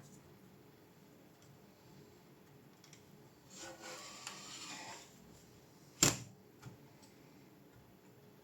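Small handling sounds: a soft rubbing for about a second and a half, then a single sharp click or tap, and a faint tick just after it.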